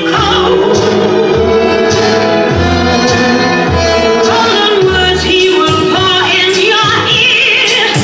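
Electronic music played live through a venue sound system: a steady pulsing bass beat under sustained melodic lines and a singing voice, with a long falling tone sweeping down near the end.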